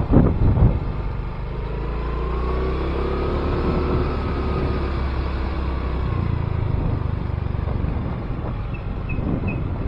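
Wind rumbling on an action camera's microphone while a motor vehicle's engine passes. The engine's pitch rises to a peak about four seconds in, then falls away.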